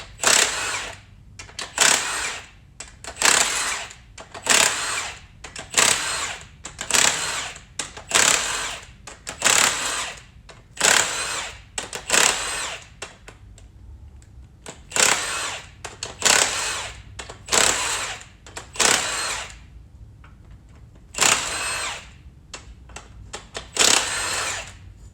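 A power tool runs in short repeated bursts, roughly one every second and a half, backing bolts out of a 13B rotary engine during teardown. It stops briefly twice.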